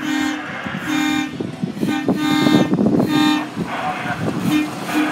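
A CSX hi-rail pickup truck, running on its rail guide wheels, sounds its horn in a string of short honks, roughly one a second, as a warning while it crosses a road grade crossing.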